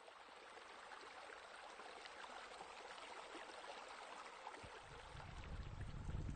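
Steady trickle of running water, like a spa spilling over into a pool. A low rumble comes in about three-quarters of the way through and grows louder.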